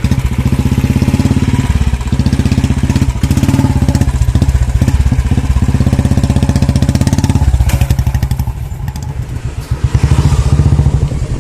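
Motorcycle engine running just after being started, pulling away with a steady fast firing beat; it eases about seven and a half seconds in and picks up again near ten seconds.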